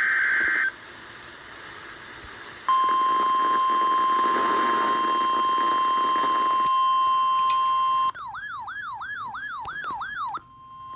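NOAA Weather Radio alert for a severe thunderstorm warning. A short burst of SAME data tones and a couple of seconds of radio hiss come first. Then comes the steady 1050 Hz warning alarm tone, broken a little past the middle by about two seconds of a fast warbling, siren-like tone before the steady tone resumes.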